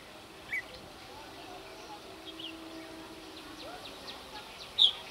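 Short, sharp bird chirps, a few scattered through and one loud one near the end, over a faint murmur of voices.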